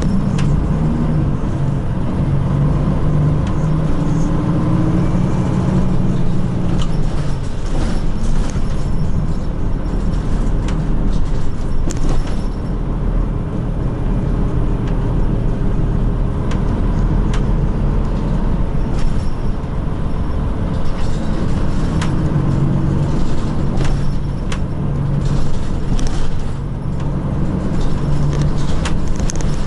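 Inside a moving city bus: the engine hums low and changes pitch as the bus speeds up and slows, with road noise and scattered short clicks and rattles from the cabin.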